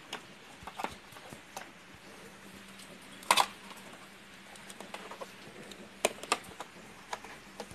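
Scattered clicks and taps of hands handling an HP LCD monitor's plastic back casing and connectors, with one sharp knock about three seconds in and a small cluster of clicks about six seconds in. A faint steady hum runs underneath.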